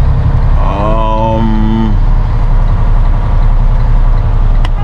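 Semi truck's diesel engine running steadily as the truck rolls slowly, heard from inside the cab. About a second in, a brief steady-pitched tone sounds over it for about a second, and there is a single click near the end.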